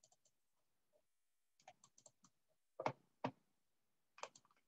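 Faint, scattered clicks of typing on a computer keyboard, the two loudest close together about three seconds in.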